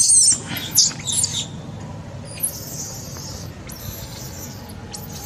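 Young macaque squealing: a quick run of short, very high squeaks in the first second and a half, then longer, thinner high-pitched squeals, over a low rumble.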